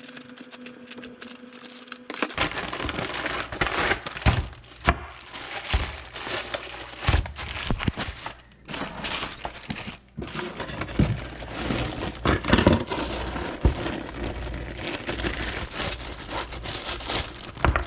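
Crinkling and tearing of packaging being handled and pulled open, with irregular knocks and cracks.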